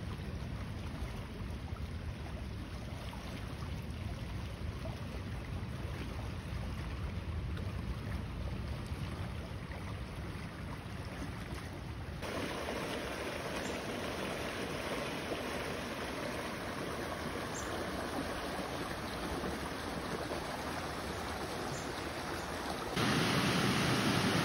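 Wind buffeting the microphone over the steady rush of flowing water; near the end the rush of a fast creek running white over rocks becomes louder.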